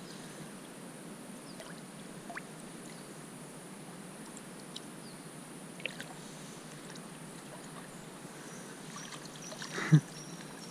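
River water lapping and small splashes around a hand holding a large trout in the water, with a few faint clicks and one brief thump near the end.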